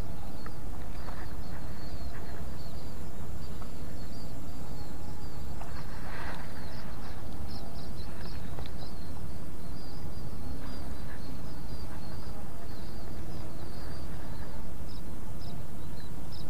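Rapid high-pitched chirping of small animals in a rice field, over a steady low outdoor rumble, with a brief rustle about six seconds in.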